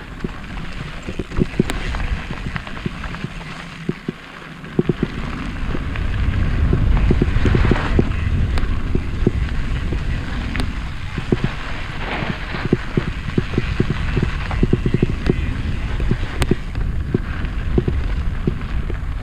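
Mountain bike riding fast down dirt singletrack: wind buffeting the on-bike camera's microphone, building about five seconds in, with tyre noise on the dirt and frequent clicks and knocks from the bike rattling over the bumps.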